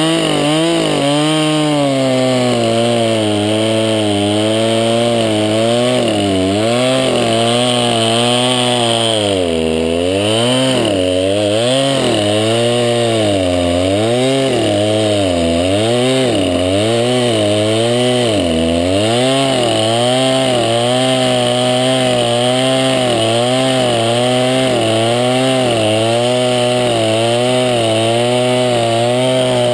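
Craftsman 20-inch 50cc two-stroke chainsaw running at high revs while cutting through a log. Its engine pitch wavers constantly as the chain bites, dropping sharply twice, around ten seconds in and near twenty seconds, then recovering.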